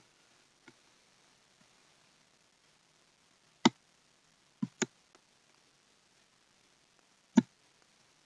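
Computer mouse clicks: one single click, a quick double click about a second later, and another single click near the end, against a faint background.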